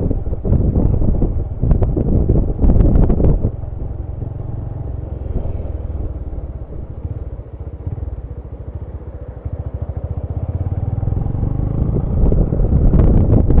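Diesel engine and loud aftermarket exhaust of an ALS intercity bus, running rough and loud for the first few seconds, then settling to a quieter, steady pulsing note before swelling loud again near the end.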